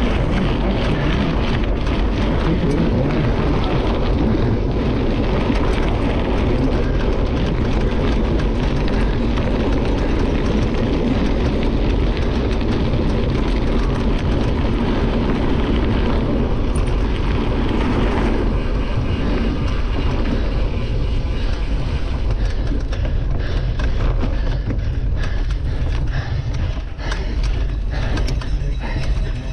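Cyclocross bike riding fast: knobby tyres crunching and rattling over gravel, with wind rumbling on the microphone. The texture thins about two-thirds of the way through as the surface turns to grass and dirt.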